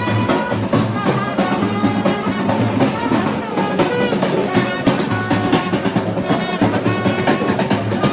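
Music with drums beating a busy, steady rhythm.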